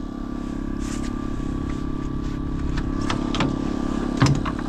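A small engine running steadily with an even hum, with a couple of light knocks about three and four seconds in.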